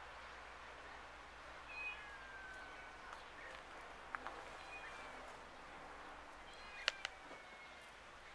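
Domestic cat meowing faintly, with a few sharp clicks: two about four seconds in and a louder one about seven seconds in.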